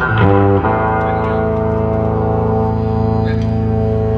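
Live band music: a busy passage stops about half a second in, and a single sustained droning chord is held steady after it.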